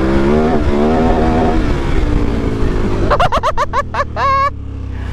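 Motorcycle engine running under load off-road, its pitch rising and falling with the throttle. About three seconds in, a quick run of high-pitched chirping squeaks cuts in over it.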